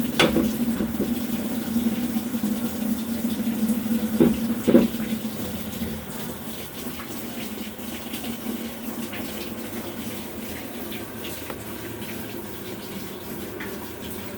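Water running into the drum of a Samsung top-load washing machine as it fills, under a low steady hum that fades about five seconds in, with a knock at the start and two more about four seconds in.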